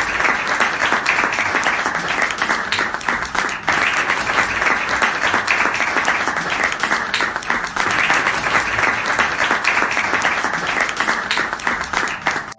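A crowd applauding: loud, dense clapping that cuts off suddenly near the end.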